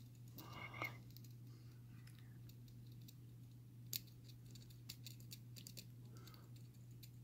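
Faint scratching and a few light clicks of a lock pick working the pins inside a six-pin Carbine padlock, over a steady low hum.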